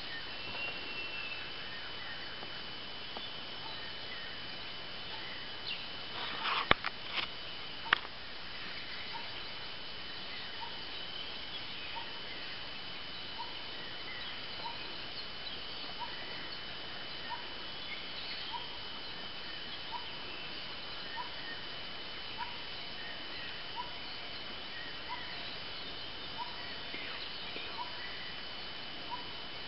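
Forest background with a bird repeating one short note about every second and a quarter, over a steady high whine and hiss. A few sharp clicks come about seven seconds in.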